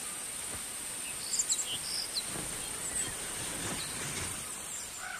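Forest ambience: a steady, high-pitched insect drone, with a few short bird chirps about one and a half to two seconds in.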